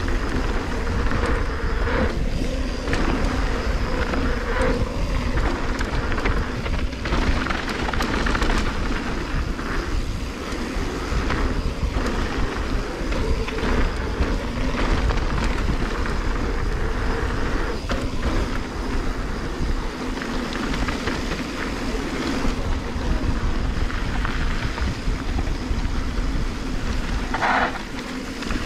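Wind buffeting an action-camera microphone and mountain-bike tyres rolling fast over a gravel trail, with scattered knocks and rattles from bumps. A short, sharper sound comes near the end.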